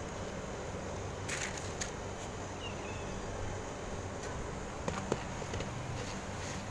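Steady low background hum with a few light clicks and taps scattered through.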